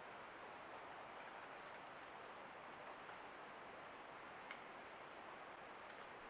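Faint, steady rush of a creek's flowing water, with a single faint click about four and a half seconds in.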